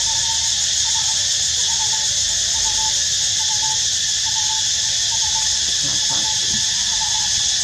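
Steady high-pitched drone of forest insects, with a short note repeated about twice a second from another animal in the forest.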